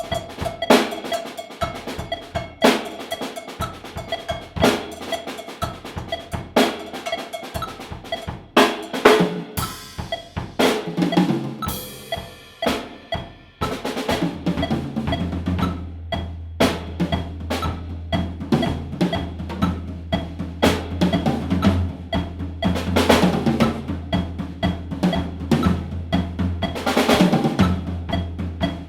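Drum kit solo: rapid snare, tom and bass drum strokes with cymbal hits. About ten seconds in the cymbals ring on their own briefly, then from about fourteen seconds a fast, unbroken bass drum pattern runs under the snare and tom fills.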